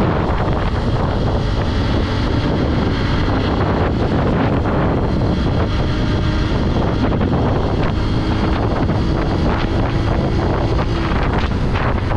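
Heavy wind buffeting the microphone of a motorcycle riding at road speed. The Honda XR150L's single-cylinder four-stroke engine runs steadily beneath it.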